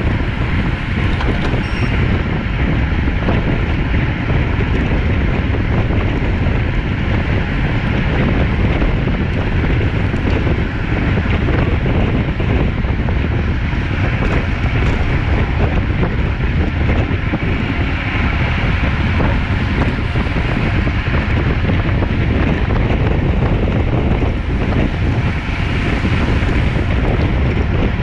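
Steady wind noise buffeting the microphone of a camera carried on a road bicycle riding at speed.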